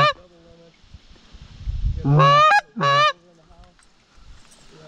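Loud goose honks with a rising break: one ending just as it begins, then two more in quick succession about two seconds in.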